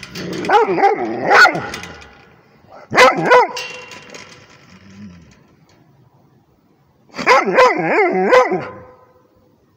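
Rhodesian ridgeback barking in three bouts, the barks wavering up and down in pitch: a long bout at the start, a short one about three seconds in, and another near the end.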